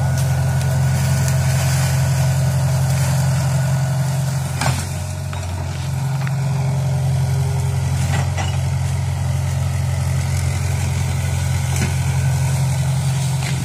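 Komatsu PC60 excavator's diesel engine running steadily as it works, slightly quieter for a moment about five seconds in, with a few sharp knocks.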